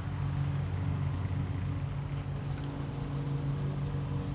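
A steady low mechanical hum, one pitched drone that does not change.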